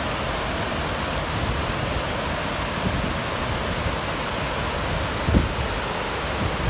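River water rushing over rocks and small stepped weirs, a steady full rushing noise, with one brief low thump a little past five seconds in.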